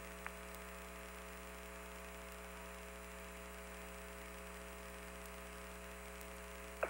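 Open-channel hum and hiss on the Apollo 15 air-to-ground radio link: a steady hum with several fixed tones over faint static, and one faint click just after the start.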